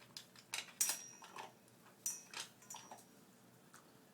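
A dog eating dry food from its bowl: a few short crunches and clinks, some of the clinks ringing briefly, bunched in the first three seconds.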